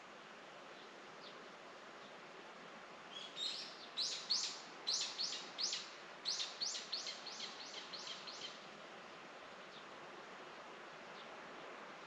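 A songbird singing a quick series of about fifteen short, high notes, each sliding downward. The song starts about three seconds in and grows softer toward its end, over a faint steady outdoor background.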